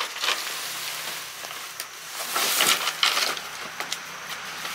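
Irregular crackling and rustling, loudest from about two to three and a half seconds in.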